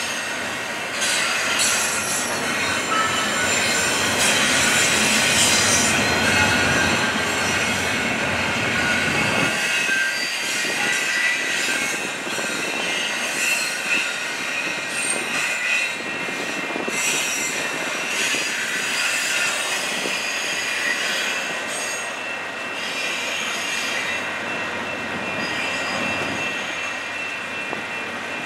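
Double-stack intermodal freight train rolling past, its steel wheels squealing on the rails with high, shifting tones over steady rumbling noise.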